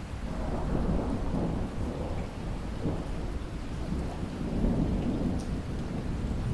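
Steady rain with a rumble of distant thunder that swells in at the start and keeps rolling over the rain.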